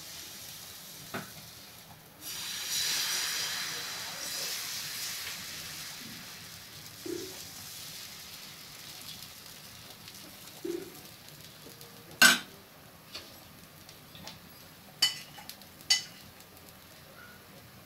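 Thin rawa dosa batter sizzling as it is poured onto a hot tawa. The hiss rises suddenly and fades slowly over several seconds. Later come a few sharp clicks, the loudest about twelve seconds in.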